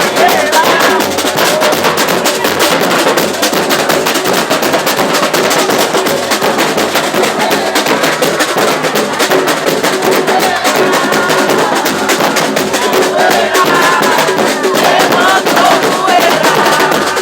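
Carnival street percussion band playing a fast, steady drum beat, with voices mixed in.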